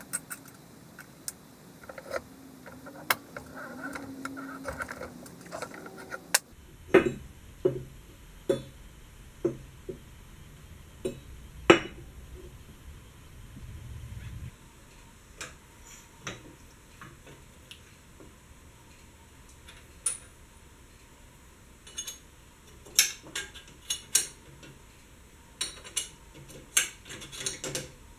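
Sharp, irregular metal clinks and knocks from an arbor press and the steel and bronze parts being handled while bronze bushings are pressed into a cast-iron Wheel Horse differential carrier.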